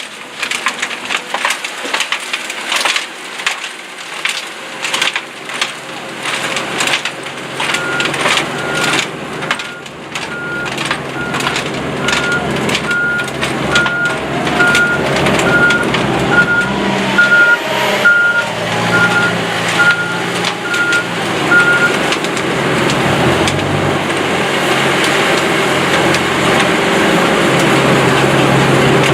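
Dirt and rocks clattering through heavy screening machinery, then a reversing alarm beeping about once a second for some fourteen seconds over the steady running of diesel equipment, which grows louder near the end.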